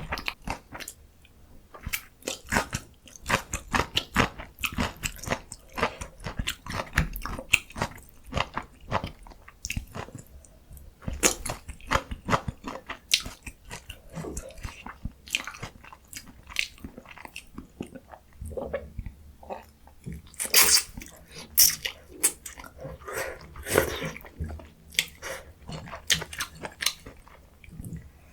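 Close-miked chewing of breaded, deep-fried pork cutlet with cheese: wet crunching and crackling bites, with a few louder crunches about two-thirds of the way in.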